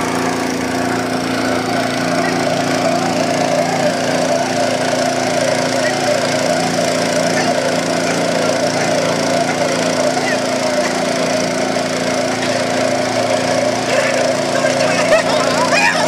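A small boat's motor running steadily as the hull cuts through the water, with water rushing past the side.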